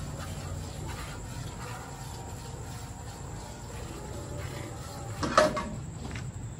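Cow being milked by hand, milk squirting in faint repeated streams into a steel bucket over a low rumble, with one brief louder sound about five seconds in.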